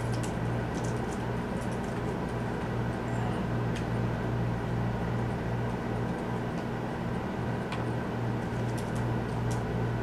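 A steady low electrical hum, with a few faint light clicks of small tools and parts being handled at a soldering bench, several of them near the end.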